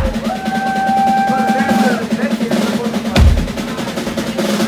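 A live rock band plays an instrumental passage: rapid snare drumming over a steady bass line. A sustained high note rings for about a second and a half at the start, and heavy kick-drum and cymbal hits land at the start and again about three seconds in.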